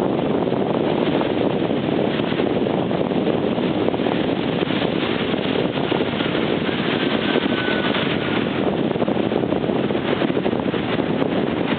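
Steady rushing noise of wind on the microphone mixed with Pacific Ocean surf, even in level throughout.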